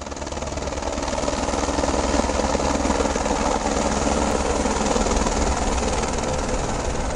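Squirrel (Eurocopter AS350) helicopter flying low overhead. Its rotor and turbine noise grows louder over the first two seconds, then holds steady with a fast low rotor beat.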